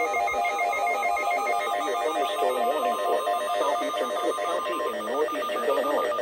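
Emergency weather alert tones: a steady tone just above 1 kHz, the NOAA Weather Radio 1050 Hz warning alarm, cutting off about five seconds in, under a rapid trilling ring of several electronic tones at once.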